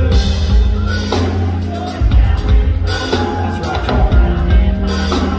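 Live pop-rock band music played on stage, with drums and a strong bass.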